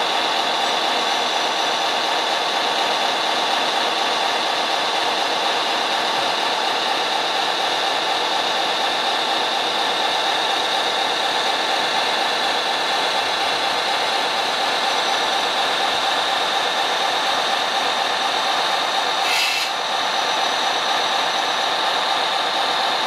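Steady engine-like running of radio-controlled model machinery, with a brief dip and a sharp click about nineteen seconds in.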